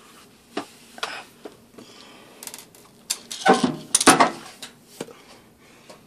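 Clicks and clattering knocks of small metal screws and a screwdriver being handled on a tile floor while the washer's bottom panel is fitted back on, the two loudest knocks about three and a half and four seconds in.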